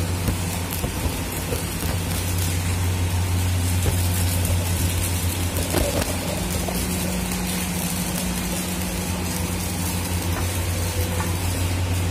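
Electric arc welding on a steel air compressor tank: the arc crackles and sizzles like frying, over a steady low mains hum.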